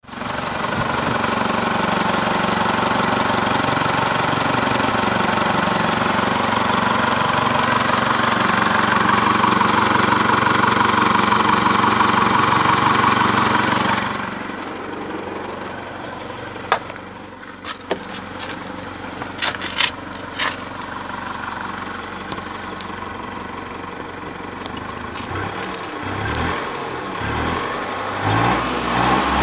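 2010 Holden Colorado's 3.0-litre four-cylinder turbo-diesel running at idle, loud and steady with the bonnet open. About halfway through it turns quieter and duller as heard from the cab, with a few sharp clicks, and near the end the engine note rises and falls.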